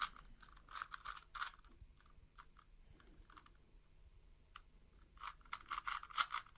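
Rubik's Cube being turned quickly by hand: rapid clicking and rattling of its plastic layers. Dense runs of turns at first, sparse in the middle, picking up again near the end.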